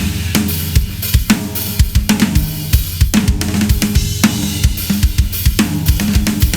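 Drum kit played in a steady groove, featuring a Ludwig Raw Brass 14x6.5 snare drum with an Evans Onyx batter head and Puresound snare wires, tuned tighter than its lowest setting, with bass drum, hi-hat and cymbals.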